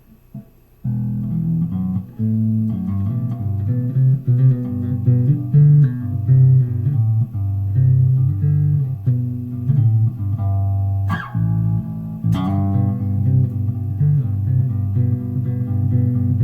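Electric bass guitar played with a clean tone, no effects engaged: a run of plucked notes starting about a second in, with two sharp string clicks about two-thirds of the way through.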